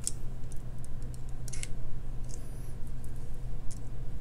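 Small metallic clicks and scrapes of jewellery pliers gripping and wrapping wire around a leather cord end, a few separate ticks with a short scrape about one and a half seconds in and a thin wavering squeak a little past halfway, over a steady low hum.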